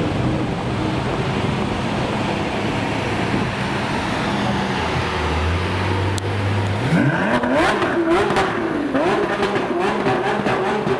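Lamborghini engine revving hard several times in quick succession, pitch sweeping sharply up and falling back, with sharp cracks mixed in. It starts about seven seconds in, over a steady background of idling engine and traffic noise.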